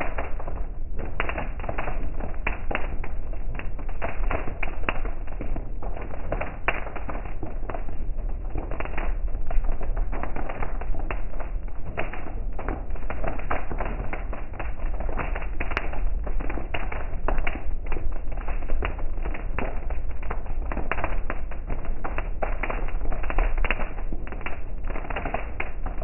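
Heavy rain drumming on a car's roof and windshield, heard from inside the cabin: a dense, irregular patter of drop impacts over a steady low rumble of the moving car.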